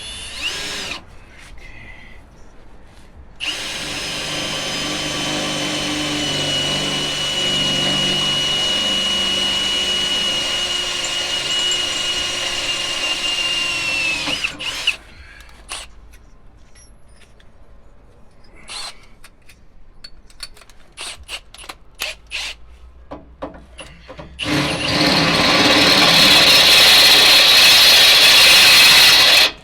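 Power drill boring through steel, running steadily for about ten seconds with a held high whine, then a stretch of scattered clicks and knocks, then a second loud run near the end.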